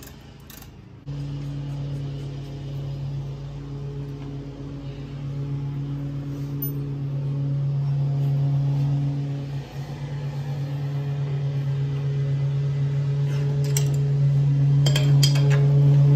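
A steady, low machine hum starts suddenly about a second in and keeps going, slowly growing louder with a brief dip halfway through. Near the end come a few sharp metallic clinks of hand tools on the strut.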